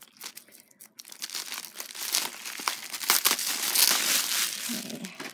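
Bubble wrap and a plastic bag crinkling as they are pulled open by hand. It starts softly with a few light clicks and gets louder and denser after about a second and a half.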